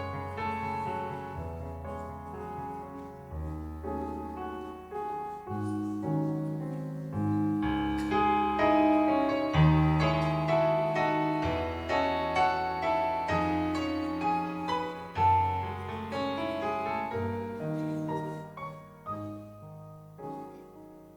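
Solo piano playing a slow instrumental introduction to a hymn, chords over a bass line, growing fuller in the middle and thinning out and fading near the end.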